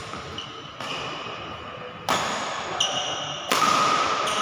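Badminton rackets striking a shuttlecock back and forth in a rally: five sharp hits, roughly every 0.7 to 1.3 seconds, each ringing on in the hall's echo, the loudest near the end.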